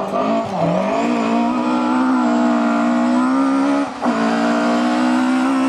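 Toyota Starlet rally car's engine running at high revs as the car drives flat out on gravel. The engine note climbs in the first second and then holds steady, with a brief dip about four seconds in.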